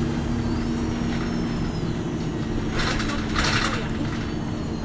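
Interior of a MAN NL255 city bus running, with a steady low drone and hum of the drivetrain. Two short hissing noises come about three seconds in.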